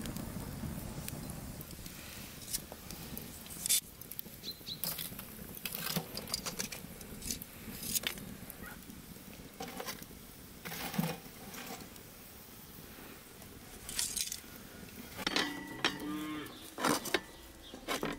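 A cow moos once, about three-quarters of the way through. Around it are scattered sharp crackles and clinks from the burning wood fire and charcoal.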